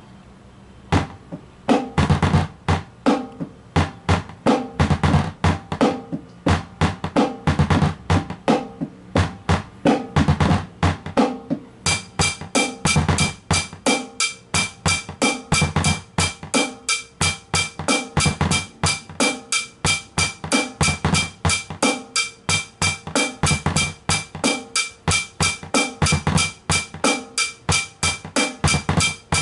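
A compact drum kit with small steel-shell toms, a small bass drum and a towel-damped snare, played in a steady groove of bass drum and snare strikes that starts about a second in. From about halfway, a bright metallic ticking at about four a second keeps time over the drums.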